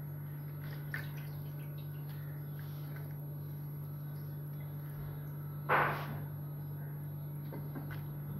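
Soaked urad dal fritters (dahi vada) squeezed out by hand over a steel bowl of water: faint drips and small clicks, with one short splash about six seconds in, over a steady low hum.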